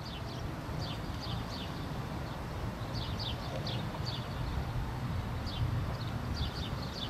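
Small birds chirping: short, falling high notes, often two or three in quick succession, repeating over a low, uneven rumble.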